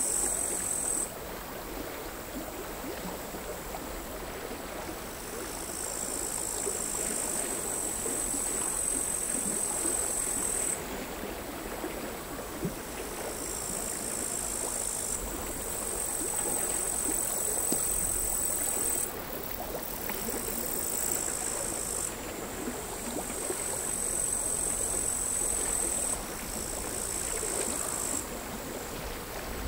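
Crickets singing in high-pitched bouts of several seconds each, every bout starting and stopping abruptly, over the steady wash of quiet, chaotic sea waves lapping the shore.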